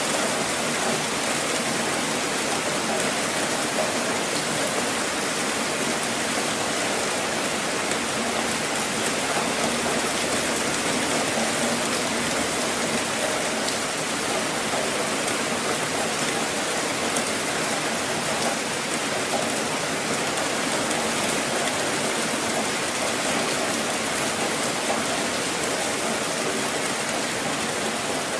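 Steady rain falling: an even, dense patter of drops that doesn't let up.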